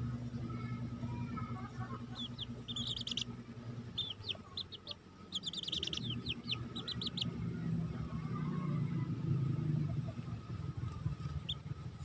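Chicks peeping: two quick runs of short, high chirps a few seconds in and around the middle, and one more near the end, over a low steady hum.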